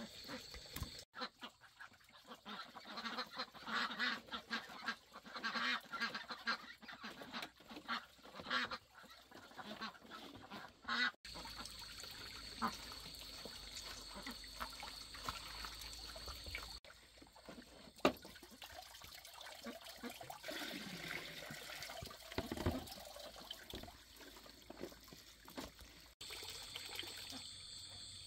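Domestic waterfowl, ducks or geese, quacking and honking in a rapid run of short calls for about ten seconds, with quieter sounds after.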